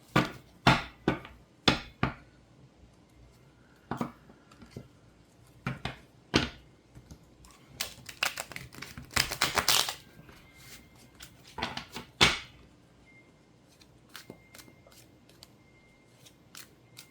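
Tarot cards being shuffled and handled: scattered sharp clicks and taps, with a denser run of card flicking about eight to ten seconds in and another burst a couple of seconds later.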